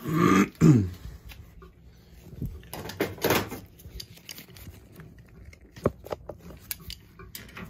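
Handling noises from work on a circulator pump: two louder scraping, clattering bursts, one at the very start and another about three seconds in, then scattered light clicks and knocks.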